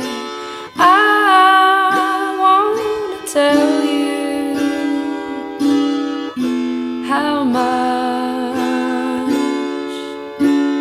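Music: a plucked string instrument striking a new note every second or two under long, held melody notes, some of them wavering in pitch.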